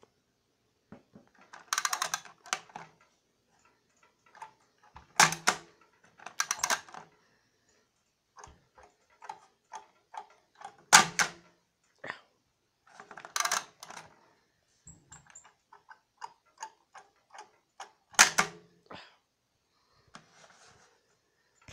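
Plastic clicking and clacking from a Crocodile Dentist toy handled by hand, its teeth pressed down and its jaw worked. Quick runs of small clicks, with about half a dozen louder clacks spread through.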